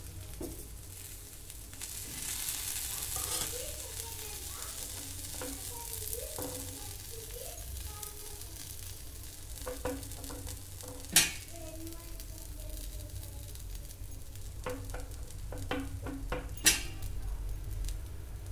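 Egg dosa sizzling on a hot iron tawa while a spoon scrapes and spreads the egg over it. Scattered small taps and two sharp clicks stand out, the loudest about two-thirds of the way through and near the end.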